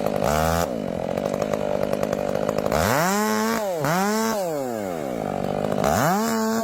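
Chainsaw engine running, its throttle opened and let off several times: the pitch jumps up briefly near the start, then rises and falls twice in quick succession around the middle, and climbs again near the end.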